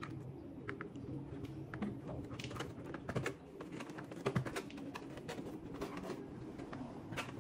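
Irregular plastic clicks and knocks as an RC desert racer truck and its hard plastic body shell are handled and set down on a table, with one louder knock a little after the middle.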